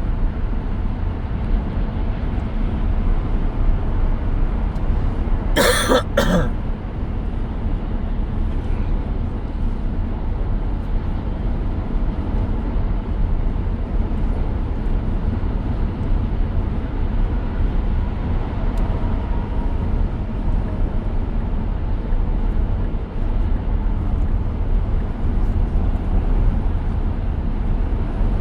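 Steady road and tyre rumble inside the cabin of a 2023 Tesla Model X driving on the highway, with one short cough-like sound about six seconds in.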